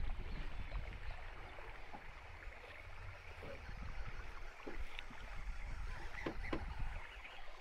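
Water lapping against the hull of a small fishing boat, over a low rumble of wind, with a few faint clicks.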